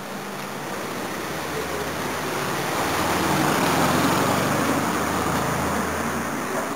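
Street traffic with a road vehicle passing close by: the rumble swells to its loudest about four seconds in, then eases off.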